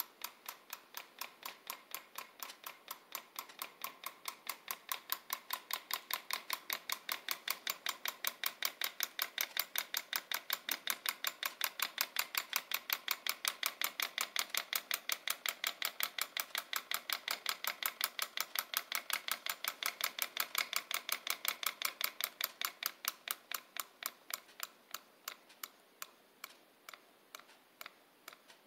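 Home-made solenoid engine running, its solenoid and linkage giving a fast, even train of sharp mechanical clicks, one per stroke. The clicks quicken through the middle and slow to spaced clicks near the end as the engine runs down.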